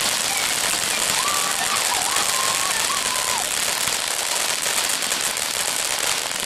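Dense, steady crackle and hiss of a burning ground firework fountain, like heavy rain.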